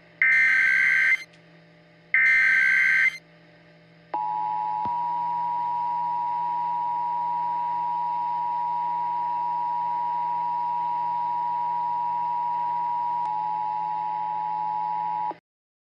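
Emergency Alert System SAME header: two one-second bursts of harsh digital data screech, about a second apart, encoding the alert as a required monthly test. Then the EAS two-tone attention signal sounds steadily for about eleven seconds and cuts off suddenly.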